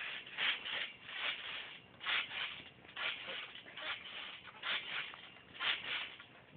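Trampoline springs and mat rasping with each bounce as someone jumps steadily, a little under one bounce a second.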